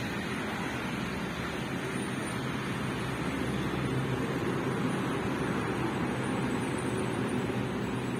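Steady road traffic noise, a continuous hum of passing vehicles, getting a little louder about halfway through.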